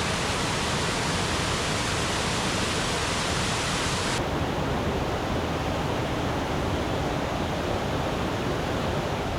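Waterfall on a small mountain stream, rushing steadily with the water running high after heavy rain. About four seconds in, the sound becomes duller as its highest hiss falls away.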